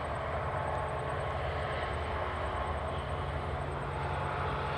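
Tasrail TR class diesel-electric locomotives running, heard as a steady low engine drone with a noisy rush over it.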